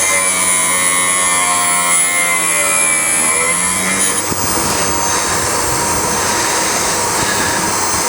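End mill sharpening machine running, its grinding wheel cutting a slot across the end of a worn end mill's flute. A whining tone with a high whistle over it sounds for about the first four seconds, then only the machine's steady running noise.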